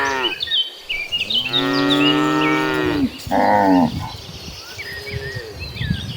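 Cows in a herd mooing one after another: a long drawn-out moo about a second and a half in, a shorter one soon after, and a fainter one later. Small birds chirp throughout.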